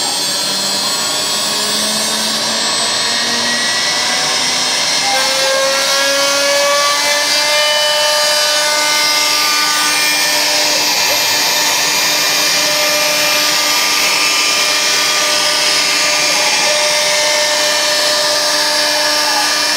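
CNC router spindle with a V-bit cutting grooves into MDF, with dust extraction sucking through a hose at the bit. Steady, loud machining noise with high whining tones that shift in pitch now and then.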